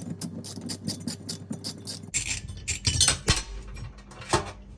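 Ratchet wrench with a 9 mm socket clicking quickly, about seven clicks a second, as it loosens the nut that holds a convection oven's fan blade. It stops about two seconds in, followed by a few metal clinks and knocks.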